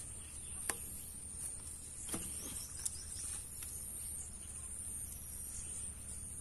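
Steady high-pitched insect chirring, such as crickets, over open rural background noise, with a few sharp clicks and knocks in the first three seconds as the suction hose is handled.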